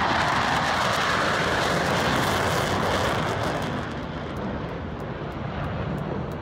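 An airplane's engine noise as it flies past, loud at first and then fading off about four seconds in.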